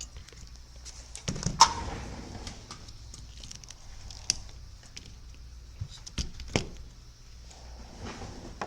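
Scattered clicks and taps of tools and parts being handled on a repair bench, the loudest a sharp click about a second and a half in, over a faint steady low hum.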